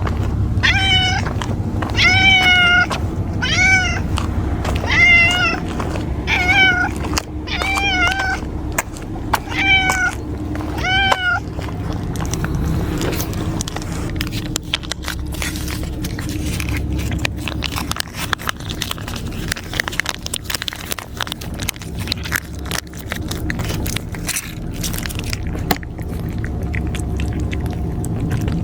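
A cat meowing over and over, about once a second, for roughly eleven calls, then falling quiet. After that only small scattered clicks are heard over a steady low rumble.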